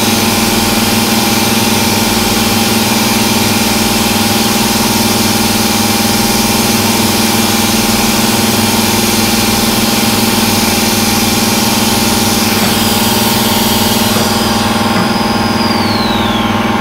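1995 Haas VF-3 CNC mill taking a cut across a metal block with a milling cutter: a steady machine hum under a hiss from the cut. About two seconds before the end the cutting hiss drops away and a whine falls in pitch as the cutter leaves the part.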